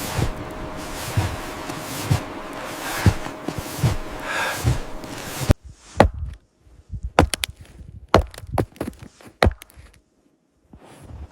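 Footsteps thudding through snow about once a second under a steady windy hiss. About five seconds in it cuts off abruptly to a scattered series of sharp knocks and cracks.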